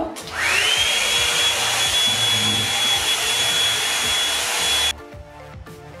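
Revlon One-Step round-brush hair dryer starting up: its motor whine rises quickly to a steady high pitch over a rush of blowing air and runs for about four and a half seconds, then cuts off suddenly, leaving soft background music.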